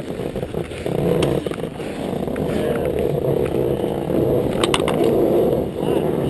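Monoski sliding and scraping over packed snow as the sit-skier moves up to the start gate: a steady rushing noise, with a couple of sharp clicks about two-thirds of the way in.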